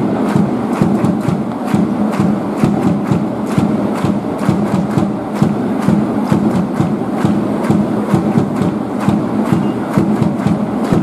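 Baseball stadium crowd clapping in an even, rapid rhythm for the batter, over a steady din of cheering.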